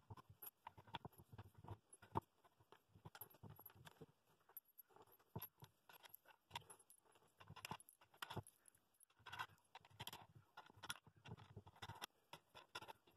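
Faint, irregular clicks and taps of metal washers, wing nuts and small wooden blocks being handled and fitted onto the threaded bolts of a plywood clamping jig, with one sharper click about two seconds in.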